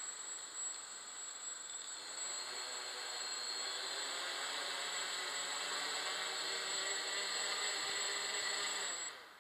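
Quadcopter's brushless motors spinning its propellers at low throttle on the ground, a steady hum with a high whine; the pitch rises slightly a couple of seconds in, then holds, and the motors cut off suddenly near the end.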